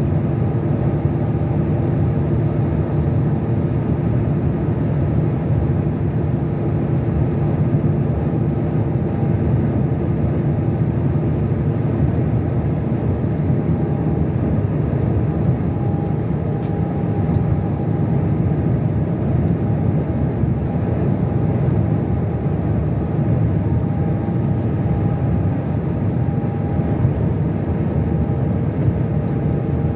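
Car driving at motorway speed: steady tyre and road noise with a low engine drone, unchanging throughout.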